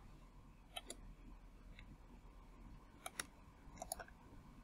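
Near silence with a few faint computer mouse clicks, in pairs about a second in, three seconds in and near the end, as objects are picked with a selection window.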